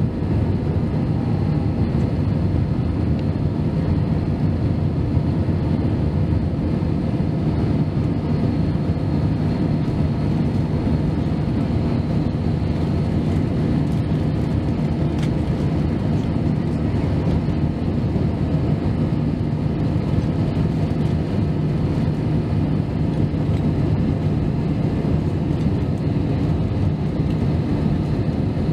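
Airliner cabin noise in flight: jet engines and rushing airflow heard from inside the cabin as a steady low rumble, with a faint steady hum under it.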